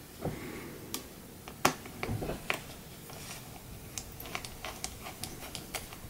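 Small metallic clicks and taps of a precision screwdriver driving the tiny M.2 retaining screw into the laptop's standoff to hold down an NVMe SSD. A few sharper clicks come in the first half, then a run of quick small clicks near the end.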